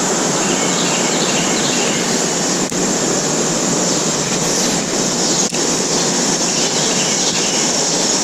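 Steady rushing of a river's current over rocks: an even, unbroken hiss close to the microphone.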